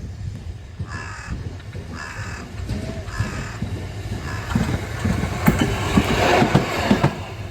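A crow caws four or five times, about once a second. From about halfway through, a rail vehicle comes closer with a rising rumble and a rapid run of knocks, which grows loudest near the end.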